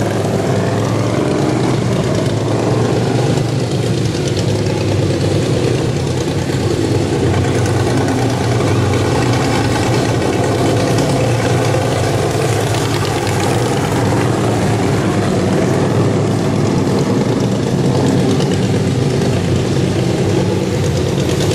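Several racing riding-lawn-mower engines running together, a dense steady engine drone whose pitch rises and falls as they rev up and back off.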